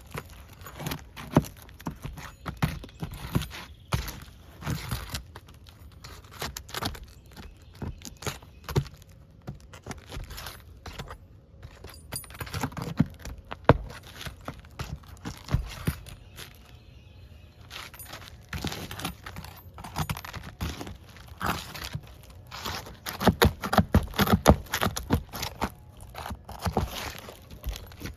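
Irregular knocks, scuffs and scrapes from someone moving about and handling things, with a quieter stretch midway and a busier run of knocks near the end.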